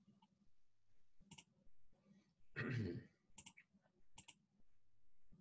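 Faint computer mouse clicks, a few single ones and two quick double clicks in the second half, with one brief, slightly louder low sound about two and a half seconds in.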